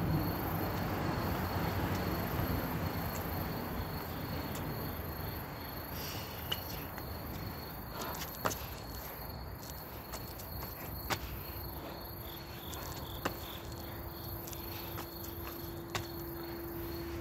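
Insects chirping in a steady, high-pitched pulse, with a sharp slap every two to three seconds as hands and feet land on brick paving during burpees.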